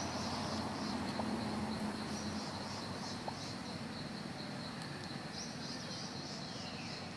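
Insects trilling steadily in a high band that swells and fades in pulsing patches, over a constant outdoor hiss.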